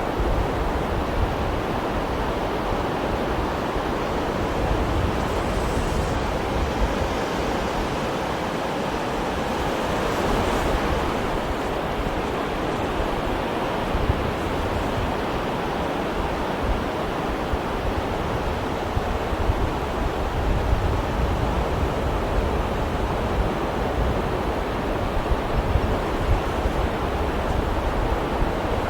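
Sea waves washing in steadily, a continuous rushing surf with slow swells and a few small splashes.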